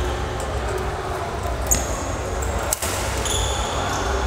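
Sports shoes squeaking on a badminton court floor in several short high squeals, with one sharp knock a little before the three-second mark, over a steady low hum of the hall.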